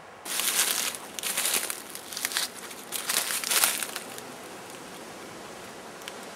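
Dry leaves and foliage rustling and crunching close to the microphone as someone moves through the undergrowth, in about four loud bursts over the first four seconds, then only a faint steady hiss.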